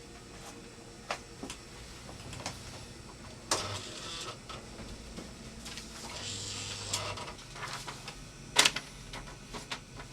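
Manual typewriter in use: irregular, unevenly spaced key strikes clacking, with two louder strikes, one a few seconds in and one near the end, and a longer mechanical rattle in between.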